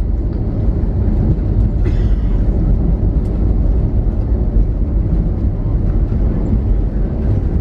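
Airbus A320neo cabin noise heard from a seat inside the airliner: a loud, steady, low rumble of the aircraft in motion near the end of the flight.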